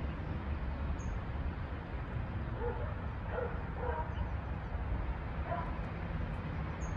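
A dog barking in short, scattered calls over a steady low rumble.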